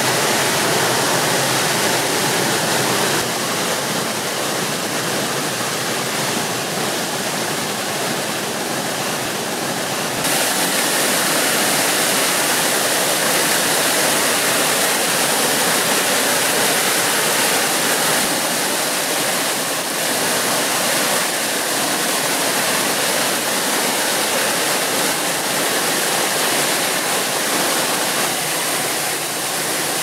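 Spring-fed waterfall and cascades: a steady rush of water falling over mossy rocks into a stream. The sound shifts abruptly about three and again about ten seconds in.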